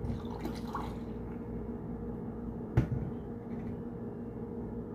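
Green juice poured from a glass measuring jug into a plastic blender pitcher, a steady pouring splash, with one sharp knock a little under three seconds in.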